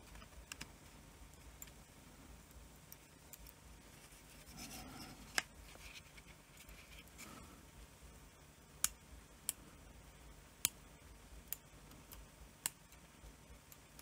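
Faint bench work on a remote control's circuit board: small hand tools click and scrape against the board and plastic. There is a soft rubbing about five seconds in, then a scattering of sharp single clicks, most of them in the second half.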